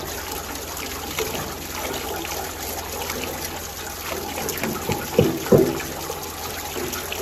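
Water running and trickling steadily, with two loud knocks about half a second apart some five seconds in.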